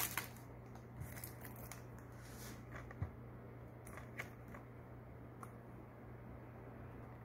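Plastic Blu-ray case being handled: a few faint, scattered clicks and taps over a low steady hum.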